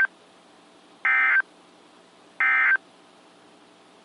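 Three short, identical bursts of EAS SAME digital data tones, a buzzy warble each about a third of a second long and roughly a second and a quarter apart. These are the end-of-message codes closing a NOAA Weather Radio warning.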